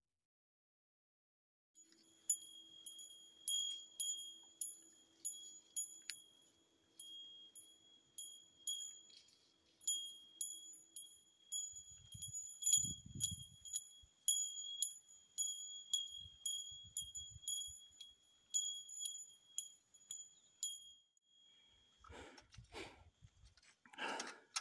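A small bear bell on a hiker's pack jingling with the walking steps: high, bright rings about twice a second, with an uneven beat. The ringing stops near the end and gives way to rustling.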